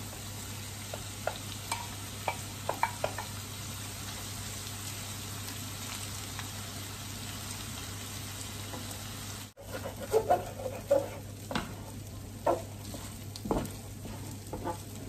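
Fried rice sizzling in a hot frying pan while it is stirred and turned with a wooden spoon. The spoon scrapes and knocks against the pan now and then, more often in the second half.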